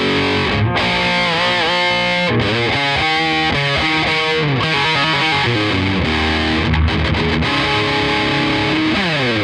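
Distorted electric guitar played through a freshly serviced Yamaha DG60 112 combo amplifier: lead lines with bent and wavering notes and fast runs, ending in a falling slide near the end.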